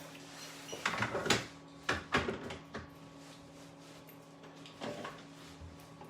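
Scattered clicks and knocks of heavy electrical wire and hand tools being handled at a breaker panel, most of them in the first three seconds and one more about five seconds in, over a steady low hum.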